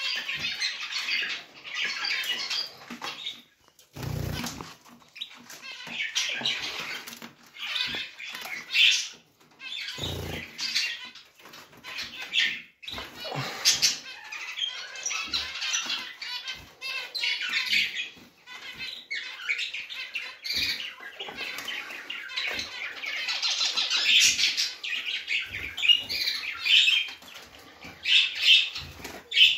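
A cage full of small finches chirping and calling over one another in a dense, continuous chatter of short high notes. Two dull knocks come about four and ten seconds in.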